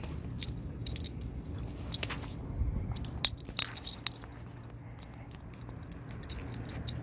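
Irregular metallic clicks and clinks from a pit bull's chain collar and leash clip as the dog pulls on the leash, over a low steady rumble.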